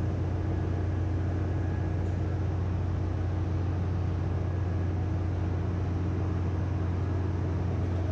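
Steady low drone of a ship's engine room, heard from inside the crankcase of the stopped main engine. A constant deep hum carries a fainter steady tone above it, from the engine-room machinery that keeps running during the inspection.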